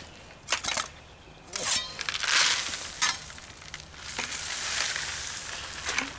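Gravel poured out of a bucket, a loose rattling rush of stone in two long pours: one from about a second and a half in, another from about four seconds, with a few clinks of stone before them.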